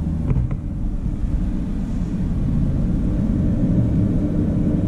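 Cooling fans of a just-powered-up Origin PC gaming desktop running at full speed, a steady rumbling whoosh that sounds "like a jet engine".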